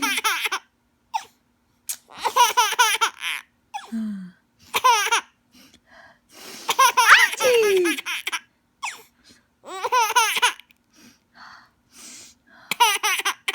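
A baby laughing in about six separate bursts a second or two apart, high squealing laughs, some sliding down in pitch at the end.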